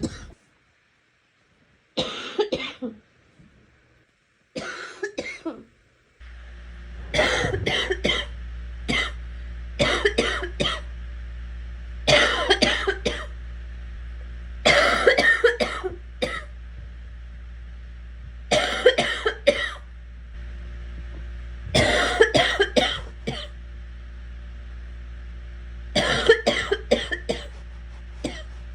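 A girl coughing in repeated short fits, each a quick run of several coughs, coming every two to three seconds. A steady low hum starts about six seconds in and carries on under the coughing.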